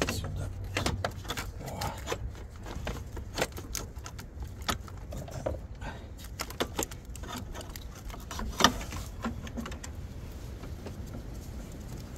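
Irregular sharp metal clicks and clinks of a socket wrench and extension working the bolts of a gear-shift actuator on a Toyota MMT semi-automatic gearbox. One louder clank comes about two-thirds of the way through.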